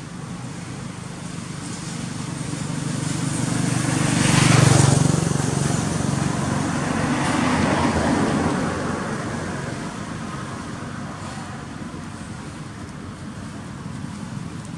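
Motor vehicle driving past: a steady engine hum swells to its loudest about five seconds in, swells again more weakly a few seconds later, then fades back to a steady background.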